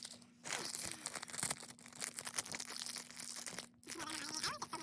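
Crinkling and tearing of a small blind-bag packet being ripped open by hand along a pre-cut notch, a rapid run of crackles with a short pause near the end before more crinkling.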